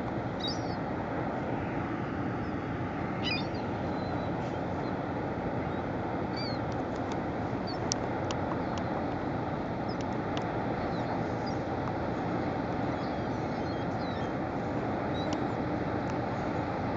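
Steady low rumble of a passing bulk cargo ship, with a few short bird chirps above it.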